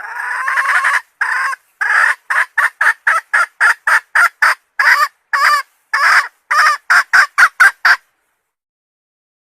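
Red junglefowl hen calling, the kind of call used as a lure to draw in a rooster. It opens with one long note of about a second, followed by a run of short notes that quicken to about four a second and stop about eight seconds in.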